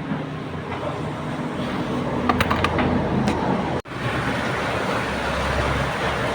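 Steady vehicle noise with a low hum and a few light clicks, cut by a brief dropout nearly four seconds in.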